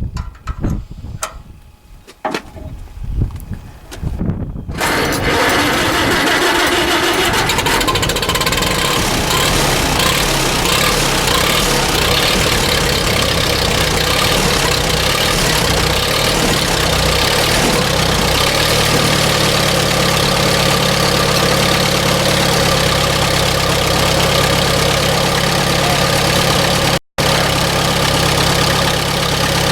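A few clicks and knocks, then about five seconds in the Allis-Chalmers WD45 tractor's engine starts and runs steadily, settling into an even idle some way past the middle. The sound cuts out for a moment near the end.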